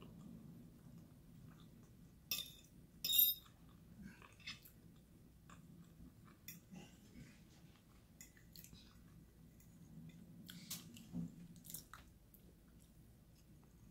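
Close-up chewing and mouth sounds of a person eating cheese enchiladas and rice, with small wet clicks throughout. Two louder, sharp clicks come about two and three seconds in.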